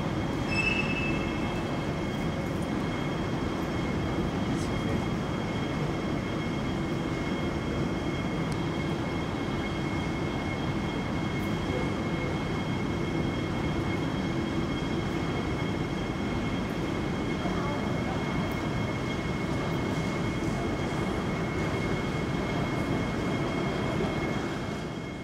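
Steady airport ambience heard from behind thick glass: an even low rumble with a constant high-pitched hum. It fades out just at the end.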